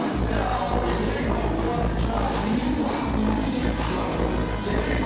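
Live hip-hop played loud through a club sound system, with a heavy bass beat and a rapper's voice over it.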